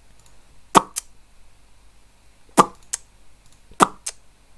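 Finger snapping: three sharp snaps about a second and a half to two seconds apart, each followed by a fainter click.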